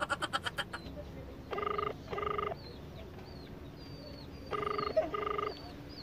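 Telephone ringback tone heard over a phone's loudspeaker: two double rings, each a pair of short beeps, about three seconds apart, as the outgoing call rings without being answered.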